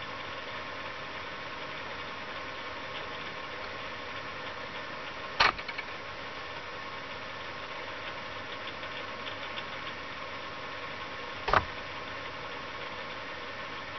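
Steady background hum with a faint whine in it, broken by two sharp clicks about five and eleven seconds in.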